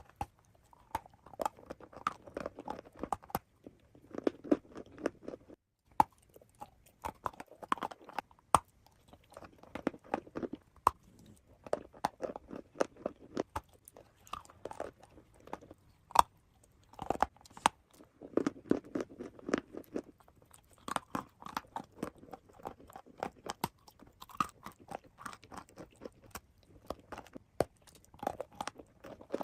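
Close-up crunchy biting and chewing, crackling in bursts of a second or two with short pauses between.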